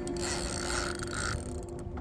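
Fishing reel buzzing with rapid clicks while a hooked fish is played on a bent rod. The buzzing cuts off suddenly about one and a half seconds in, leaving a few scattered clicks over a low rumble.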